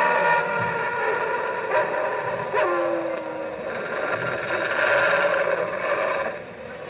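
Wolf-like howling and yelping: a howl trailing off, a short yelp about two and a half seconds in that drops in pitch, then another held howl that stops shortly before the end.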